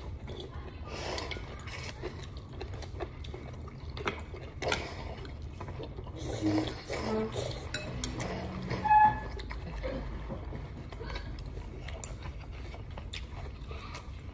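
Eating noodle soup from a ceramic bowl: a metal spoon and chopsticks clink and scrape against the bowl, with slurps of broth. A sharp ringing clink about nine seconds in is the loudest sound.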